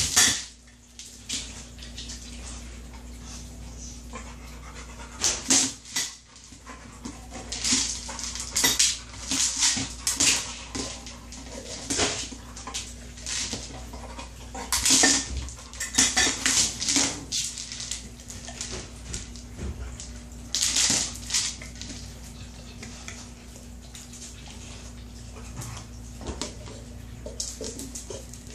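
Red Kong Wobbler, a hard plastic treat-dispensing toy, being nosed and knocked over on the floor by a dog, clattering and rocking with kibble rattling inside. The clatters come at irregular times, several in quick runs, and fall away for a few seconds near the end.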